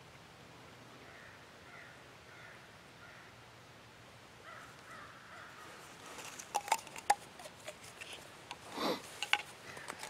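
Crows cawing faintly and repeatedly in the background. From about six seconds in come sharp clicks and knocks of something being handled close by, the loudest a short burst just before the nine-second mark.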